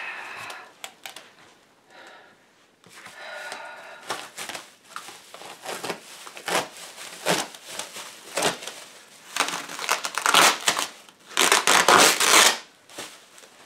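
Silver foil bubble-wrap packaging crinkling and crackling as it is pulled off a folding solar panel, loudest in a run of crackles near the end.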